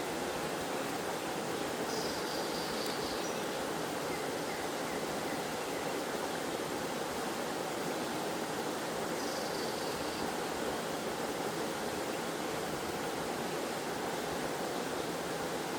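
Waterfall and stream water rushing in a steady, unbroken flow. Two faint, brief high chirps come through, about two seconds in and again near nine seconds.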